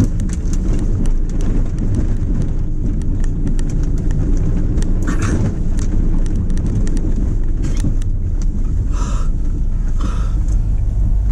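A 4x4's engine running steadily, heard from inside the cabin, with frequent short knocks and rattles as the vehicle jolts over a rough, snow-covered track.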